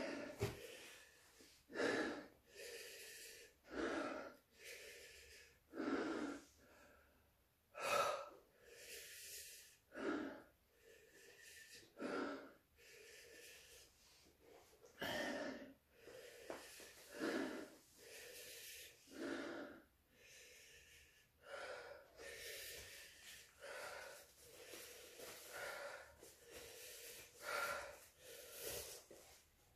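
A man breathing hard through an open mouth, a loud breath about every two seconds, panting against the burn of hot chili peppers in his mouth and throat.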